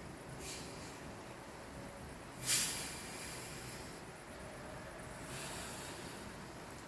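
Heavy thunderstorm rain falling steadily, with a few brief louder swells of hiss. The loudest comes suddenly about two and a half seconds in and fades within half a second.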